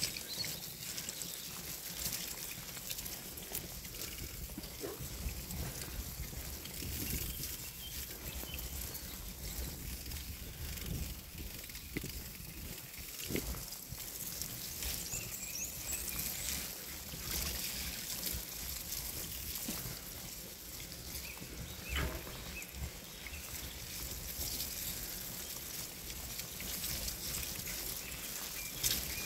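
Bicycle riding over a muddy, rutted dirt track: tyres rolling and splashing through mud and puddles, with a low rumble of wind on the microphone and scattered knocks from bumps, one sharper knock about three quarters of the way through.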